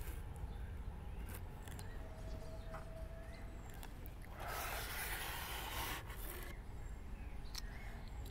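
Faint handling sounds, small scrapes and clicks, as small parts are worked on a polystyrene foam board. About four seconds in comes a rushing hiss lasting about two seconds, the loudest sound here.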